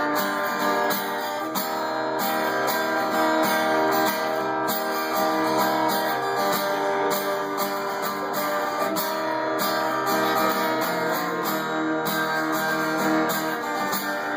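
Acoustic guitar strummed in a steady rhythm, playing the instrumental intro of a song.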